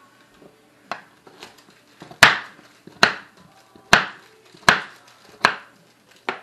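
Chef's knife chopping a sweet potato into cubes directly on a stone countertop: seven sharp knocks of the blade striking the counter, about one every second, louder from about two seconds in.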